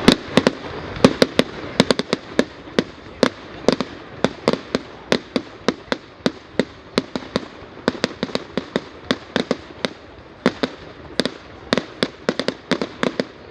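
Fireworks display: a rapid, irregular string of sharp bangs and crackles, several a second, over a steady hiss.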